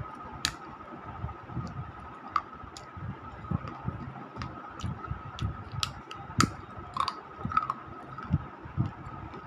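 Close-up chewing and crunching of a hard, brittle piece of broken clay saucer: irregular sharp cracks and clicks mixed with low chewing thumps.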